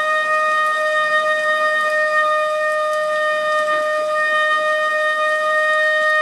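Shofar (ram's horn) sounding one long, steady held blast at a single pitch.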